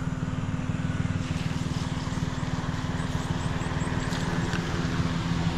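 A small van's engine running at a steady speed, heard as a fast low pulsing and hum from a camera mounted outside the van. Road and wind noise form an even hiss over it.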